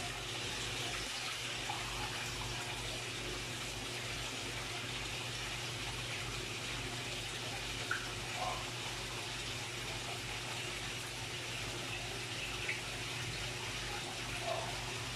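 Steady rush of water pouring and splashing into a fish pond, as from a filter return pipe, with a low steady hum underneath.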